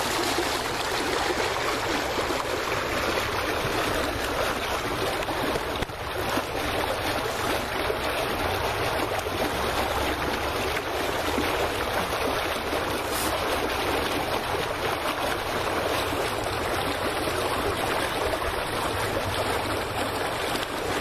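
Water splashing and lapping steadily close to the microphone.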